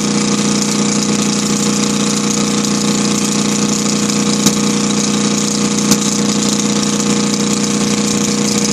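Kohler KD425-2 two-cylinder air-cooled diesel engine running steadily and loudly, freshly tuned up after a hard-starting problem. Two brief sharp clicks come about a second and a half apart near the middle.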